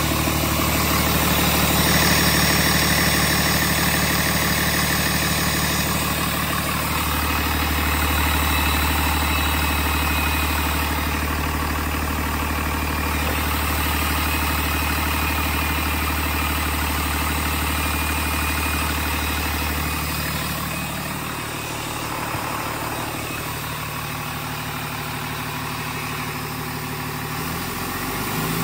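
Cummins ISB 6.7-litre inline-six turbo diesel running steadily at idle, its note starting to rise near the end.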